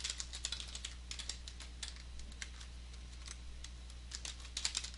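Typing on a computer keyboard: irregular soft keystrokes entering a password, coming faster in a burst near the end, over a steady low hum.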